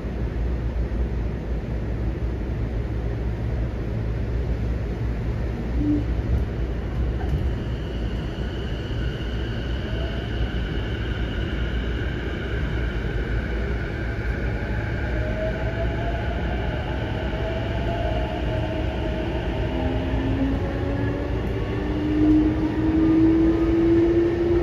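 Running sound heard inside the passenger car of a JR East E233 series 7000-number electric train: a steady low rumble from the wheels and running gear, with faint whining tones over it. Near the end a whine rises steadily in pitch and grows louder.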